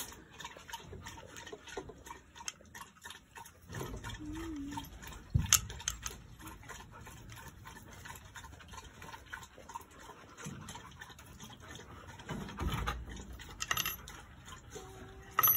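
Long steel wood screws being handled, set against one another and laid on a wooden board: scattered light clicks and taps, with a sharper knock about five seconds in and another cluster of clicks near the end.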